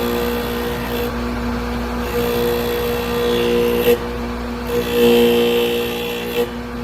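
Dedicated drill grinder running with a steady motor hum. A higher grinding hiss comes and goes in three spells as a drill bit is ground against the wheel.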